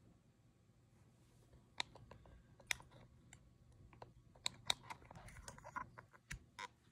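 Faint scattered clicks and taps of a microphone and its cable being handled and plugged in, coming more often in the last two seconds.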